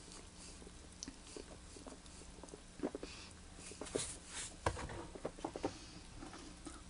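Quiet mouth sounds of someone tasting soda, swishing it with small smacks and clicks, then spitting it into a plastic bucket near the end.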